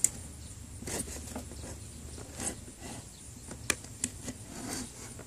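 Scraping and picking at old adhesive tape stuck to the rubber part of a running-board step: irregular scratches and small sharp clicks, the loudest click at the very start.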